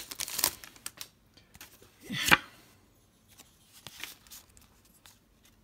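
Foil booster-pack wrapper crinkling as a stack of Pokémon trading cards is pulled out of it, with one louder rustle about two seconds in, then faint clicks of the cards being handled.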